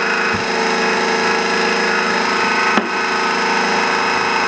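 12-volt electric car jack's motor running steadily as the jack lowers, with a single click about three seconds in.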